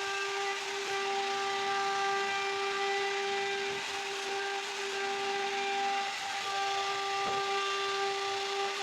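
CNC router spindle cutting wood: a steady high whine with overtones over the continuous hiss of the cutter in the wood.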